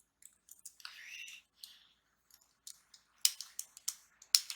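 Beyblade toy packaging and plastic parts being handled: a short crinkle of packaging about a second in, then a run of sharp plastic clicks and taps near the end.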